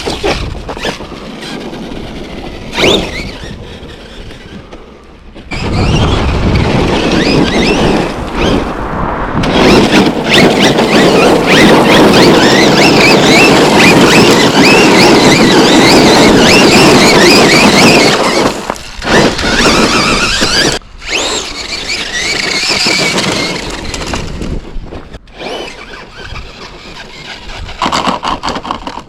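Losi LMT electric RC monster truck being driven hard: a high, wavering squeal and whine from its motor and drivetrain over tyre noise. It is quieter at first, loudest for about twelve seconds in the middle, then drops back to shorter bursts.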